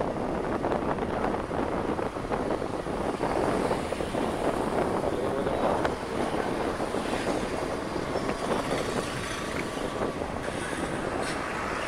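Steady street traffic and wind noise, heard from a vehicle travelling along a town road.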